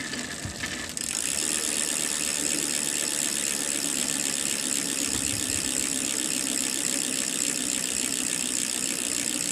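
Ragusa R100 bicycle rear hub freewheeling, its pawls ratcheting so fast that the clicks run together into a steady high buzz, starting about a second in.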